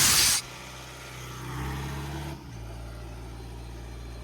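Sullivan D185 air compressor's diesel engine idling just after start-up. A loud rushing noise cuts off suddenly about half a second in; the engine note swells slightly, drops back a little past halfway, and then holds a steady idle.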